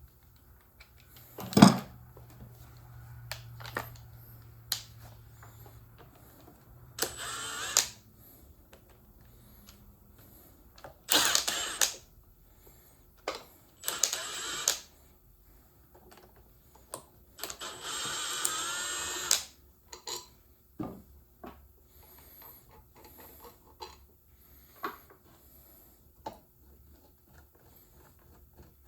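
A handheld power driver run in four short bursts of about a second each, backing out fasteners while the air brake valve is taken apart. A loud knock sounds about a second and a half in, with clicks and light knocks of tools and metal parts between the bursts.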